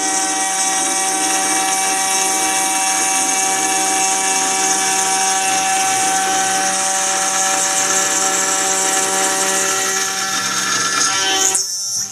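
CNC mill spindle turning a small carbide end mill at about 12,000 rpm, cutting a contour through aluminium plate: a steady high-speed whine with a hissing cutting noise. Near the end the cut stops and the sound drops off sharply.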